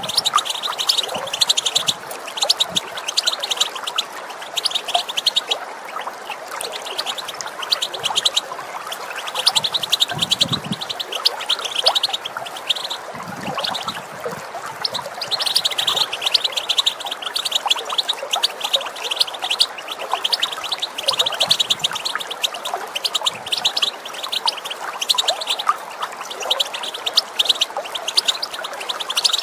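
European goldfinch giving its rapid twittering chatter call ('batbata') in repeated runs of quick chirps, with short pauses between runs, over a steady rush of running water.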